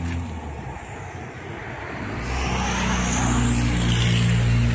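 Radio-controlled model PC-6 airplane flying overhead. Its motor's whine rises in pitch and then falls as it passes, over a low steady hum that grows louder about two seconds in.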